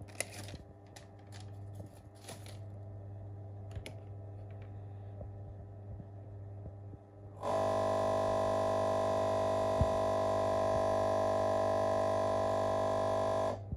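Low electrical hum with a few faint clicks at first. About seven and a half seconds in, a loud, steady electrical buzz starts abruptly and cuts off about six seconds later.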